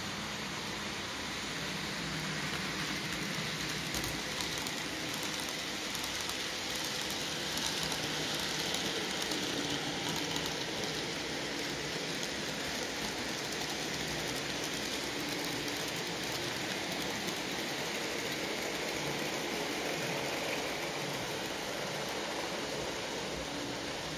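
N gauge model trains running: a steady whir and rattle of small electric locomotive motors and wheels on the track. It grows louder in the first half as the Graham Farish Class 47 and its rake of freight wagons pass close over the points, then eases off.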